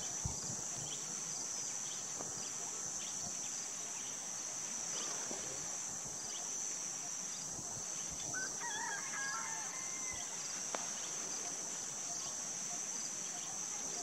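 Steady high-pitched drone of insects, with fainter evenly spaced insect chirps beneath it. A small bird sings a short twittering phrase about eight or nine seconds in.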